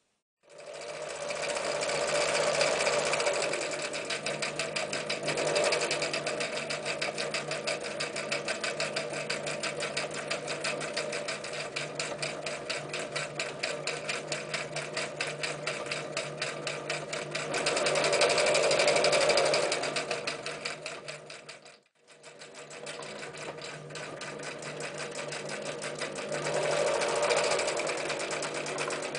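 Necchi Lydia 544 electric sewing machine stitching through thick denim, eight layers and jeans seams: a motor hum with rapid, even needle strokes. It starts about half a second in and speeds up and slows a few times. About three quarters of the way through it slows to a stop for a moment, then starts again.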